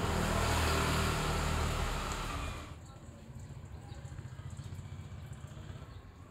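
A motor vehicle's engine running close by with street noise, which drops away suddenly about three seconds in, leaving a faint low rumble.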